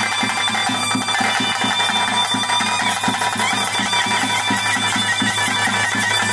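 Traditional ritual music for a Panjurli Kola: a wind instrument plays a sustained melody over a quick, steady drum beat.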